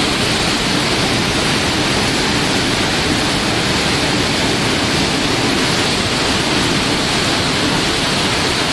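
Steady, loud rush of foaming water in the churning wake thrown up astern of the aircraft carrier USS Ronald Reagan at speed.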